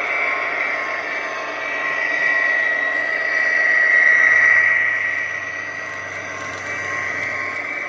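HO scale model diesel locomotives running past close by, with a steady high-pitched whine over the rolling of wheels on the track. The sound swells to its loudest about four seconds in as a locomotive passes, then eases off as the coal hoppers follow.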